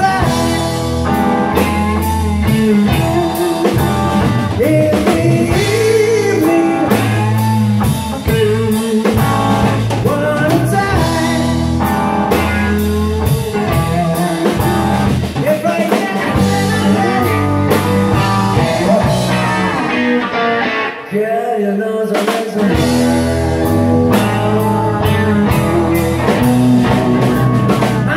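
Live rock band playing a slow blues: electric guitars, bass guitar and drum kit under a sung lead vocal. About three-quarters of the way through, the bass and drums stop for a moment and then come back in.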